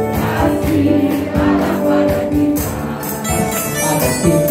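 Upbeat Indonesian gospel praise music, with a congregation singing along and clapping to the beat.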